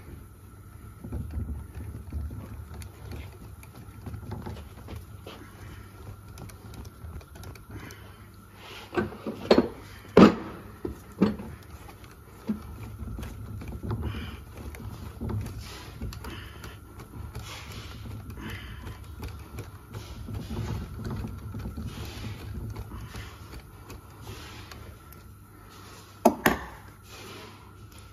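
Injector-sleeve rolling tool being turned in a diesel cylinder head's injector bore with a cranked speed brace: irregular metallic clicks and rubbing as the rollers fail to bite into the sleeve, with a few sharp knocks about nine to ten seconds in and once more near the end.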